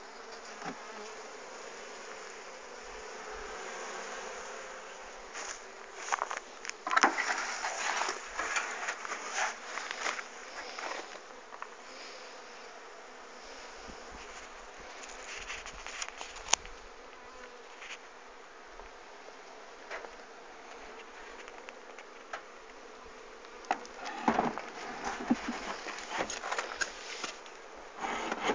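A honeybee swarm buzzing steadily as it moves into a hive. Louder rustling and knocks come in two spells, about a quarter of the way in and near the end.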